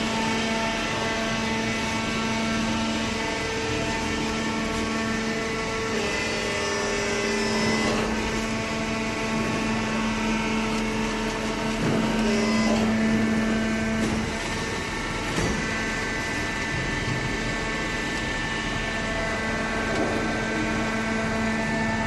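Hydraulic waste-paper baler running: a steady, pitched hum from its motor and hydraulic pump, with a couple of short knocks about halfway through.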